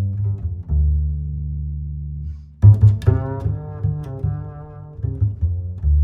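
Background music on low string instruments, bowed and plucked. After a brief dip, a fuller, brighter string passage comes in about two and a half seconds in.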